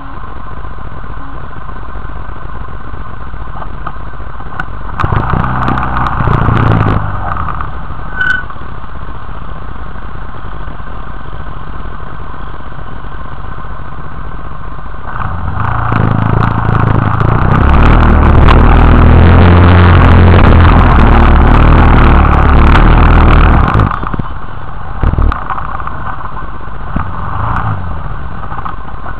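Quad bike (ATV) engine running at low revs, revving up briefly about five seconds in, then running hard and loud for several seconds under load as it pulls up a steep dirt bank, before easing off near the end.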